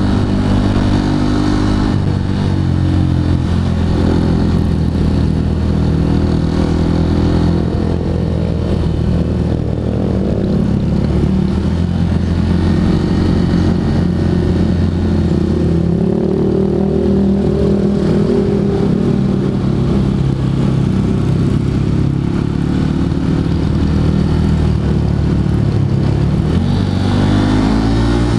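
Honda CRF150L's single-cylinder four-stroke engine running under way on a ride, its pitch rising and falling several times as the throttle and gears change.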